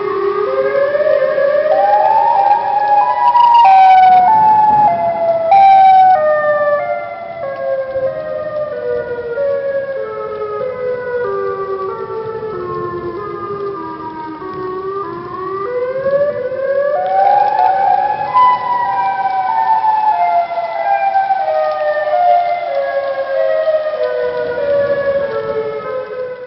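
Electronic warning siren whose pitch climbs in steps and then falls slowly in steps, twice over. A quick rising glide comes between the two falls.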